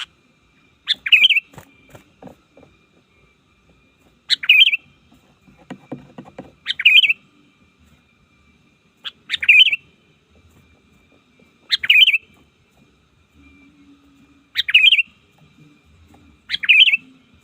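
Sooty-headed bulbul calling: a short, quick warbled phrase with a sharp rising start, repeated seven times about every two and a half seconds, as a call to draw rival bulbuls.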